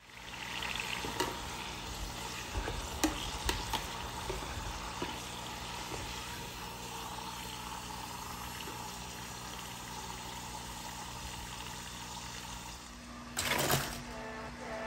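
Spring rolls deep-frying in a pot of hot oil: a steady bubbling sizzle, with a few light clicks in the first few seconds and a brief louder rush of noise near the end.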